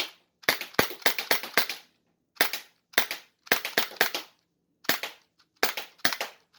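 SIG Sauer M17 .177 CO2 blowback pellet pistol fired rapidly, about fifteen sharp shots in quick strings of two to four with short pauses between. Each shot comes with the clack of the slide cycling under CO2 blowback.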